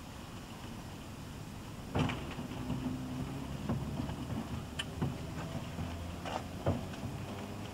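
On-board sound of a British Rail slam-door electric multiple unit, recorded on cassette tape. A loud bang about two seconds in is followed by a steady low hum with scattered knocks and clicks. In the second half a faint whine slowly rises in pitch as the train gets under way.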